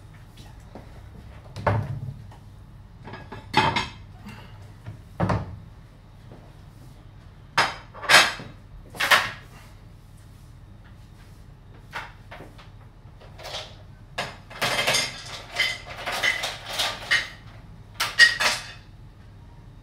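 A string of separate knocks, clinks and clatters of objects handled on hard kitchen surfaces, with quiet gaps between them and a busier run of sounds in the last few seconds.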